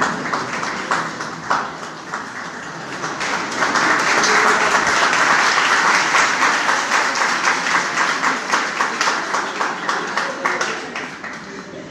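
Audience applauding: scattered claps at first, swelling into full applause that holds for several seconds, then dying away near the end.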